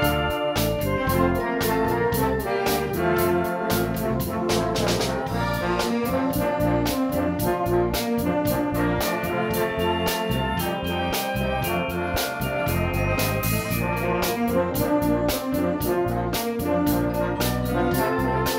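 Wind band playing a piece together, with flute, clarinet and saxophones over percussion keeping a steady beat.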